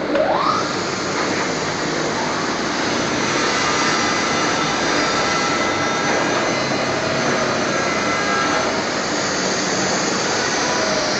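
Plywood edge-trimming machine running: a brief rising whine at the start, then a loud, steady whirring machine noise.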